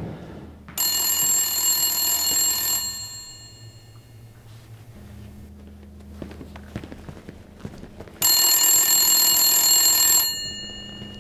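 Payphone bell ringing twice, each ring about two seconds long and stopping abruptly, with a little ringing left hanging after each.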